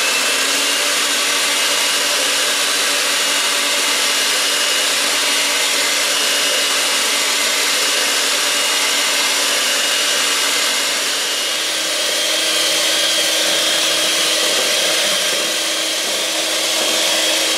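Handheld electric mixer running steadily and quite noisy, its beaters whipping cream in a stainless steel bowl. The motor's hum rises slightly in pitch about two-thirds of the way through.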